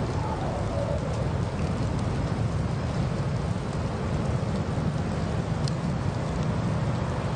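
Steady rumble and hiss of blizzard wind, with a few faint ticks.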